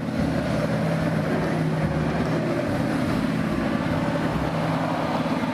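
Sound effect of a tank engine running steadily: a low drone under a rushing noise, cutting in abruptly out of silence.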